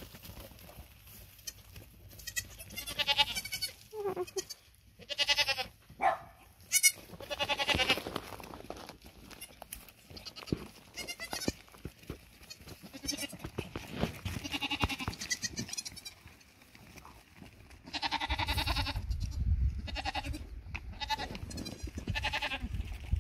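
Goats bleating again and again, one call after another, some high and wavering, from a herd of adults and young kids. A low rumble runs under the calls in the last few seconds.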